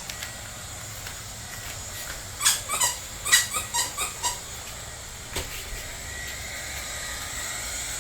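A dog's squeaky toy squeaking several times in quick succession, over a steady background hiss.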